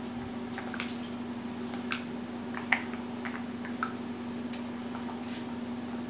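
Light, scattered clicks and taps of small plastic stacking cups being handled by a parrot's beak and a hand, the sharpest one nearly three seconds in, over a steady low hum.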